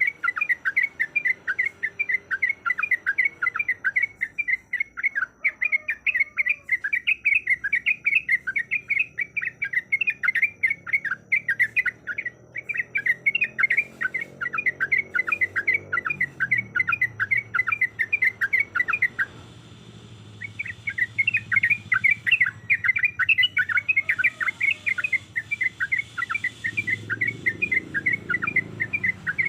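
Yellow-vented bulbul singing a long, rapid rolling song of short chirping notes, about five a second, pausing once for a second or so about two-thirds of the way through.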